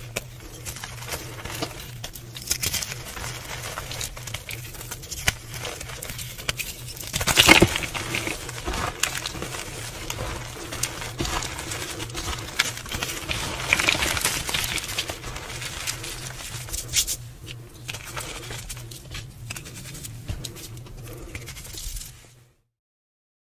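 Hands crumbling a pressed block of glittered gym chalk and crushing and rubbing the loose chalk powder with rose petals: dense crunching and crackling, played at double speed, with a louder burst of crunches about seven seconds in. A steady low hum runs underneath, and everything cuts off suddenly near the end.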